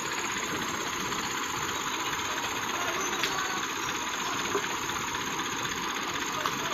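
Heavy machinery engine running steadily, a constant mechanical rumble with hiss and no changes in speed.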